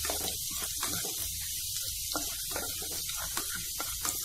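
Finely chopped garlic sizzling in hot oil in an aluminium kadhai as it is stirred with a wooden spatula: a steady hiss with small crackles.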